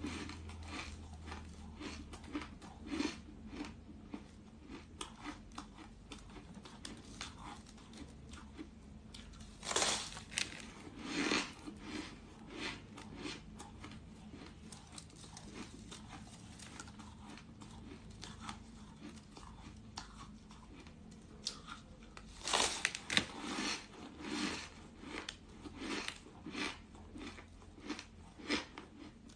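Bites and chewing of a slab of snowy, frost-covered ice, crunching in quick irregular crackles throughout, with a few louder crunchy bites about ten seconds in and again past twenty seconds.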